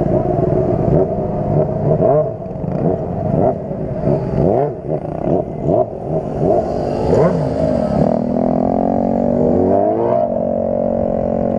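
Sport motorcycle engine revved up and down in quick throttle blips, about two a second, as the rider holds a wheelie. Near the end its pitch climbs in a longer pull and then settles into a steadier note.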